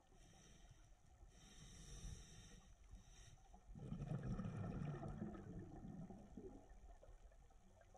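Scuba diver breathing through a regulator underwater. A hissing inhale runs for about two seconds, then about four seconds in comes a louder bubbling exhale lasting a couple of seconds.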